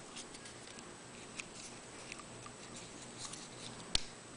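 Faint crackling and small ticks of a decal's paper backing being peeled away by hand, with one sharp click about four seconds in.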